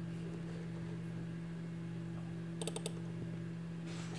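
A computer mouse button double-clicked: a quick cluster of four sharp clicks about two and a half seconds in, over a steady low hum.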